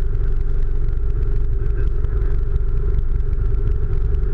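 Single-engine light aircraft's propeller engine running steadily, a loud, even drone heard inside the cockpit as the plane rolls along the ground.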